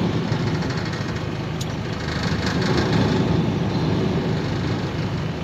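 A heavy diesel engine running steadily with a low rumble, from a container truck or crane standing in the yard.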